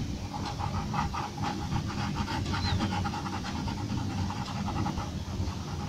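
Graphite pencil scratching on paper in quick back-and-forth shading strokes, about four or five strokes a second, over a steady low rumble.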